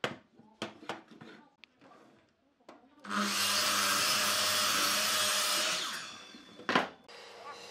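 A few knocks and clicks of wooden blocks being set against a miter saw's fence, then about three seconds in a Makita compound miter saw starts up and cuts through a block. It runs loudly for about three seconds, winds down, and is followed by one sharp knock.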